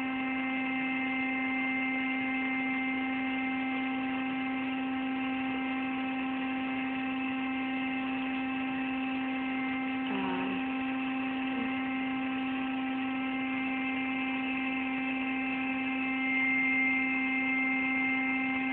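Electric air pump running with a steady hum as it inflates a flocked air mattress.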